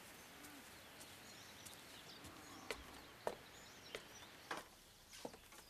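Footsteps on wooden porch steps and boards: several sharp knocks, roughly two a second, starting about halfway through, over a faint outdoor hiss.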